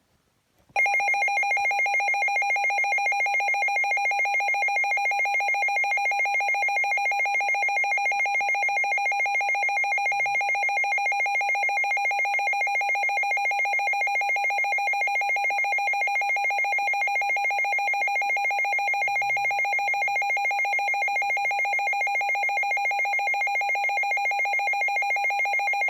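Midland WR300 weather alert radio sounding its siren alert test: a loud electronic alarm tone, pulsing rapidly and evenly, that starts about a second in and carries on without change.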